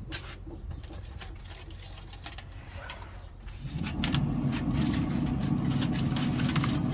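Aluminum foil crinkling and crackling as it is peeled back off a foil pan, with a low rumble coming in a little under four seconds in.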